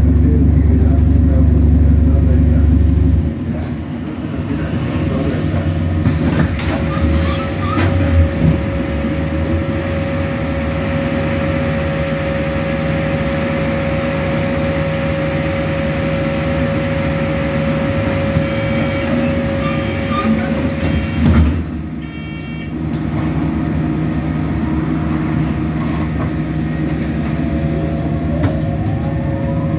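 A bus running. A loud low engine drone drops away about three seconds in and gives way to a steady running hum with a held whine, broken by a brief louder knock about twenty-one seconds in.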